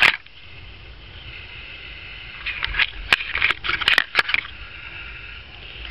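A camera falling over onto the work table, with a sharp knock at the start, then a cluster of clicks and knocks from about two and a half to four and a half seconds in as it is handled and set back up.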